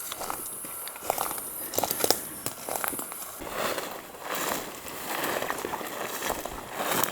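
Footsteps crunching and crackling through dry leaf litter and twigs, in uneven steps. A steady high hiss runs underneath and stops about three and a half seconds in.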